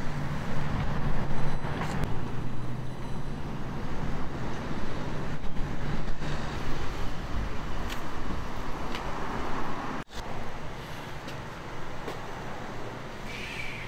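Street traffic noise with a motor vehicle's engine running steadily as a low hum. The sound drops out for an instant about ten seconds in, then carries on.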